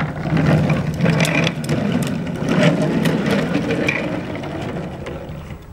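Hard plastic wheels of a toddler's foot-pushed ride-on toy motorbike rolling over asphalt: a continuous rumbling rattle with scattered clicks, fading near the end as the bike moves away.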